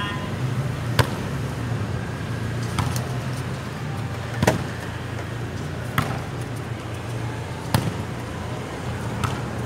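A volleyball being struck during a rally: about seven sharp slaps of hands and forearms on the ball, roughly one every second and a half, over a steady low hum.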